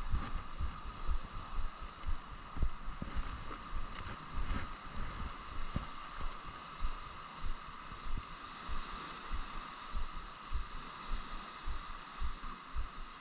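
Water lapping against a small boat in wind, with wind buffeting the microphone: irregular low thumps several times a second over a steady rush, and a faint steady hum underneath.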